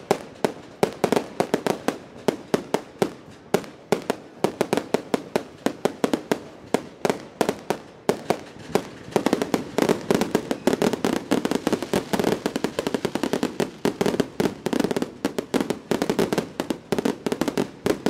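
Fireworks barrage: a rapid, continuous string of sharp bangs and crackles, growing denser about halfway through.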